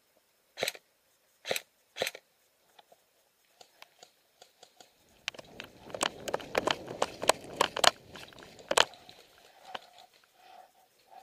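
Three sharp clicks, then about four seconds of close crunching and rustling with many more clicks mixed in.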